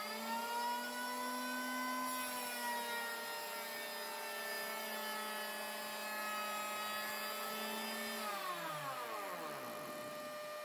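Einhell handheld electric planer running at full speed, cutting a 3 mm-deep pass along a pine board, its whine sagging slightly in pitch about two seconds in as the blades bite. About eight seconds in it is switched off and the whine falls away as the cutter block spins down, over a steady hum from the dust extractor connected to it.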